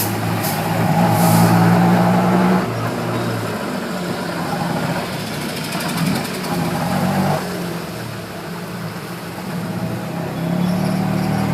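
Busy road traffic heard from a vehicle on the move: engines running and vehicles passing, a continuous traffic rumble with a steady engine drone.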